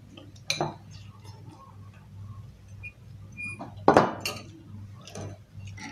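A metal fork and dishes clinking and knocking on a table: several separate clinks, the loudest just before four seconds in.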